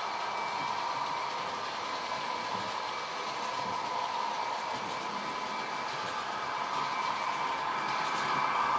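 H0 model train running on the layout: a steady motor hum with wheel noise on the track.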